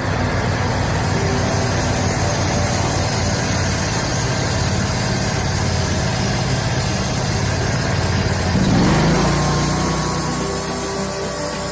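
Homemade band sawmill's engine running steadily, then rising in pitch and getting louder about eight and a half seconds in, as if throttled up, and holding at the higher speed.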